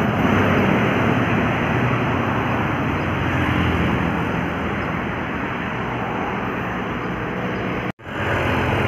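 Road traffic on a hill: a heavy vehicle's engine running steadily as it passes, slowly fading. The sound cuts out completely for a moment about eight seconds in, then the traffic noise returns.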